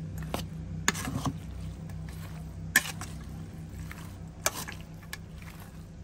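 Seafood papaya salad with rice noodles being tossed with a metal spoon in a metal bowl: wet squishing of the mix and several sharp clinks of the spoon against the bowl, the loudest about three seconds in.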